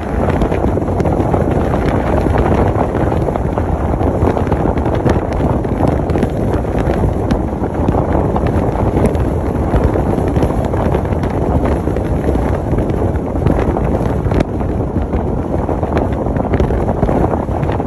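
Wind rushing over the microphone of a camera held outside a moving car, a steady loud rumble, with the car's road noise underneath.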